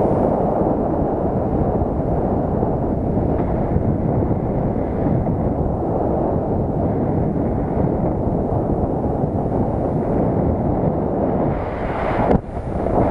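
Wind buffeting the microphone of a camera on a paraglider in flight: a steady, loud rushing rumble, dipping briefly near the end.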